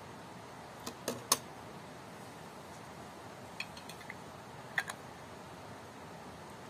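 Sharp clinks and taps of glass canning jars and a metal utensil against a large aluminium pot as the jars are handled: three quick clinks about a second in, the last the loudest, then scattered lighter taps, ending with two near the end, over a steady low background hiss.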